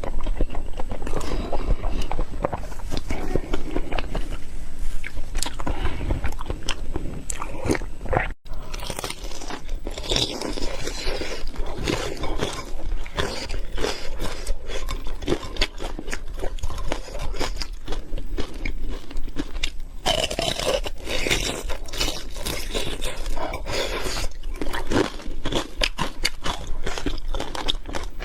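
Close-miked eating: a person biting, crunching and chewing food in dense, irregular crackles and smacks, with a brief break about eight seconds in.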